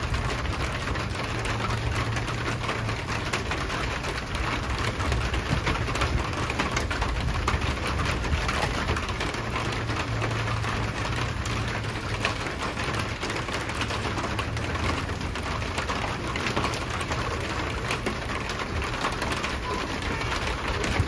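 Steady rain, with many drops ticking on a hard surface, over a low steady rumble.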